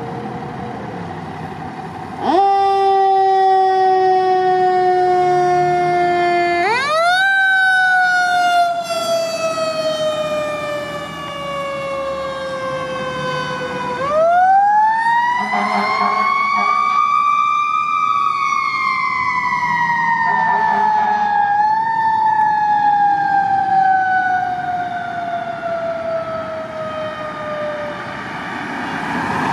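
A fire engine's Federal Q mechanical siren: it comes on a couple of seconds in, then winds up and coasts down in long slow glides. It is wound up briefly again after about seven seconds and in a long rise about halfway through, then falls away toward the end. Short air horn blasts sound around the middle.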